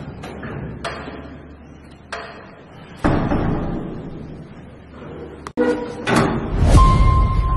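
Sharp taps and knocks on a door, then a sudden loud thud about three seconds in that fades away; a short steady beep sounds near the end.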